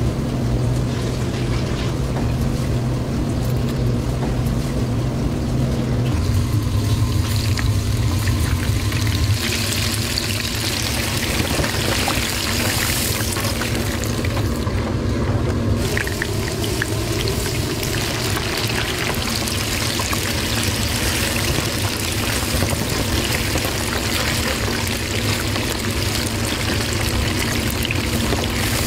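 Hot oil sizzling and bubbling in a deep fryer, a steady crackling hiss over a constant low hum.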